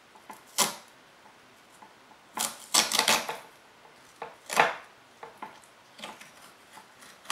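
Masking tape being peeled off a cork rod grip and crumpled in the hand: a few short ripping and crinkling sounds, the loudest cluster about three seconds in.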